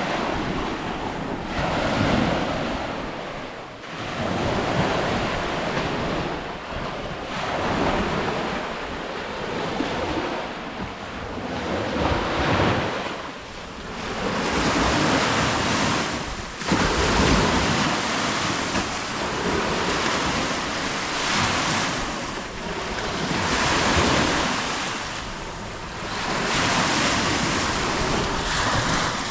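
Lake Baikal waves breaking, one surge of washing noise after another every two to three seconds.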